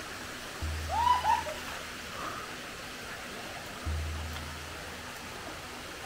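Background music with a deep bass note about every three seconds over the steady rush of flowing water. About a second in, a short two-part rising and falling high call stands out.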